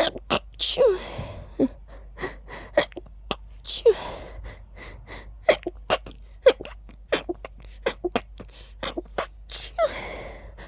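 A person sneezing over and over in quick succession. The bigger sneezes end in a voiced 'choo' that falls in pitch, about a second in, near four seconds and near the end, with many short sharp sounds between them.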